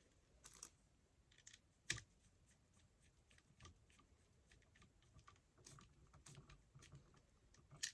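Faint, scattered small clicks and taps of a screwdriver and wire on a USB wall outlet, as the black wire is fastened under its brass terminal screw. One sharper click about two seconds in.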